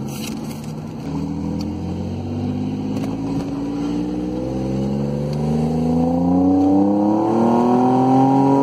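Toyota RAV4's engine accelerating hard in one long pull, heard from inside the cabin, its pitch and loudness rising steadily from about a second in.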